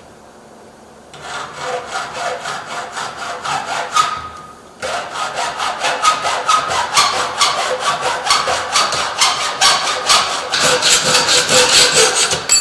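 Hacksaw cutting a storm door frame to length with rapid back-and-forth strokes, in two bouts with a short pause between them. The second bout is longer and louder and stops abruptly.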